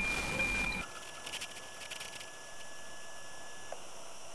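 NOAA 18 weather satellite's APT signal heard through an FM receiver: a steady high tone with regular ticking, which cuts off abruptly under a second in. After that there are only faint clicks and a thin steady tone until near the end, over a low hiss.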